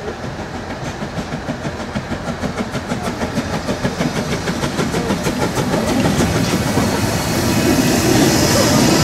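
Narrow-gauge steam locomotive 99 1715-4, a Saxon VI K tank engine, working a train into the station: its exhaust beats come in a quick, even rhythm and grow steadily louder as it draws near and passes close.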